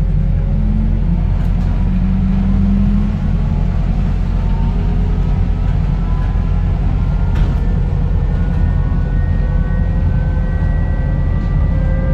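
Upper-deck interior of a New Routemaster (Borismaster) series-hybrid double-decker bus under way: a steady low rumble from the drivetrain and road. From about halfway through, the electric traction motor's whine rises slowly in pitch as the bus gathers speed.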